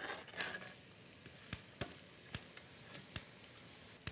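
Sliced onions scraped off a cutting board into a stainless-steel skillet of melted butter: a brief scraping rush at the start, then a handful of sharp, separate clicks and pops over the next few seconds.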